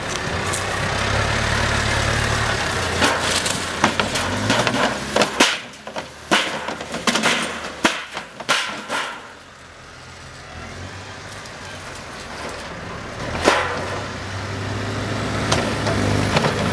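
Farm tractor's diesel engine running while its front loader tips a load of hay and manure onto a pile, with a string of knocks and clatters. The engine falls quieter about halfway through and picks up again near the end, after one sharp knock.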